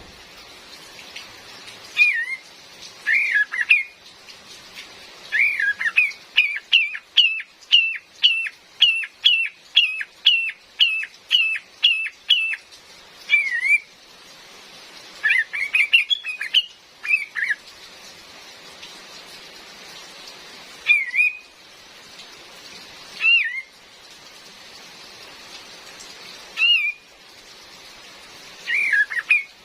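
Female kapas tembak, a bulbul, calling in short bending whistled notes. About five seconds in comes a fast even run of roughly twenty notes, about three a second, followed by single and paired calls a few seconds apart. A steady hiss of rain runs underneath.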